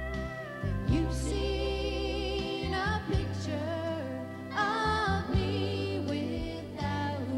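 A woman singing into a microphone over instrumental accompaniment with steady bass notes; her held notes waver in pitch.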